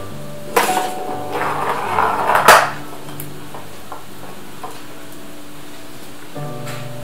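Treat-dispensing snack ball knocking about on a wooden floor as a cat bats it: a knock about half a second in, then a quick run of knocks, the loudest about two and a half seconds in. Background music plays steadily underneath.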